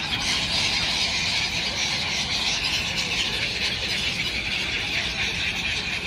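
A large flock of gulls calling all at once, a steady chorus of high squealing calls with no single call standing out.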